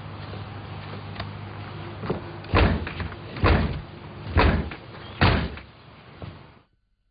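A fist pounding on a front door: four loud, heavy bangs about a second apart.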